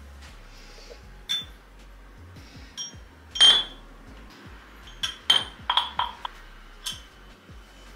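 Glass kitchenware clinking as it is handled and set down: several separate sharp chinks with a brief ring, the loudest about three and a half seconds in.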